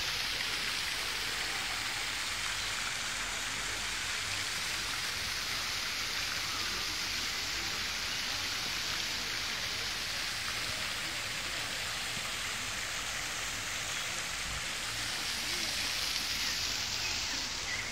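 Steady, even rushing of splashing water.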